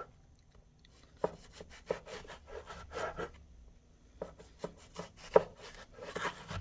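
Chef's knife slicing a long eggplant lengthwise into strips on a wooden cutting board. Irregular soft cutting strokes and taps of the blade on the board begin about a second in, the loudest a sharp tap near the end.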